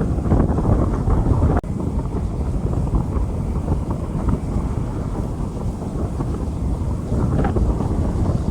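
Rain falling on a street, heard as a steady, low, muffled noise with wind buffeting the microphone. It cuts out for an instant about a second and a half in.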